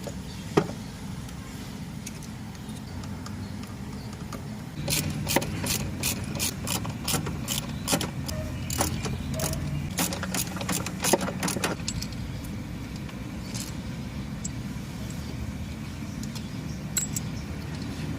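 A car engine runs with a steady low hum. About five seconds in, a quick run of sharp metallic clicks and clinks from hand tools starts and lasts some seven seconds, with a couple more clicks near the end.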